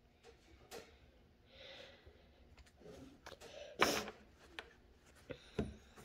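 Scattered small clicks and rubbing of a car seatbelt buckle as a child presses at its release button without managing to push it hard enough, with a sharper knock about four seconds in and a dull thump near the end.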